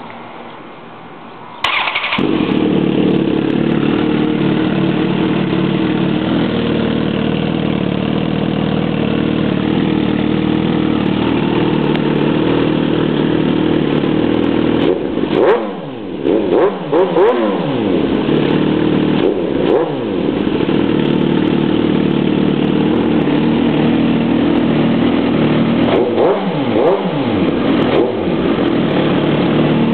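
2007 Suzuki GSX-R1000's inline-four, breathing through an M4 aftermarket exhaust, starting up about two seconds in and settling into a steady idle. It is then revved in quick throttle blips, a burst of several in the middle, one more shortly after, and another few near the end, each rising and falling back to idle.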